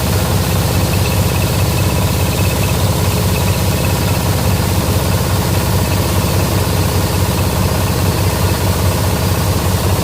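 SM60-type multipurpose grinding mill running steadily while grinding corn cobs: a loud, constant mechanical drone with a deep rumble under a hiss.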